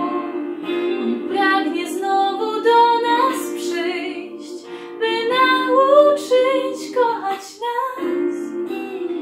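A young woman singing a Polish Christmas song in long held notes over a sustained instrumental backing.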